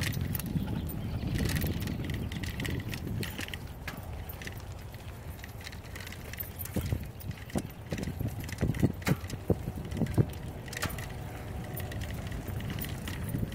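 Mountain bike rolling along a dirt trail: a steady low rumble from the tyres, with a run of sharp knocks and rattles from about seven to ten seconds in.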